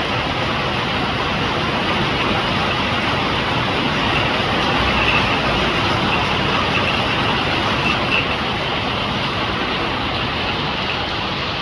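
Rain falling steadily: a loud, even hiss that holds at the same level throughout.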